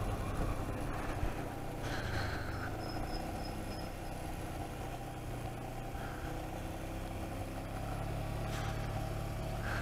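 Motorcycle engine running at steady low revs, with road and wind noise from the moving bike.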